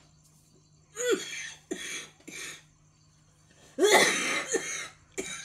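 A woman coughing: three short coughs starting about a second in, then a louder, longer bout near the end. It is the persistent cough of a lingering cold with a painful throat and chest.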